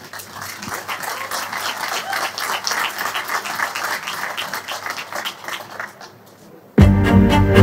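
Audience applauding, the clapping dying away after about six seconds. Near the end, loud music with strings starts suddenly.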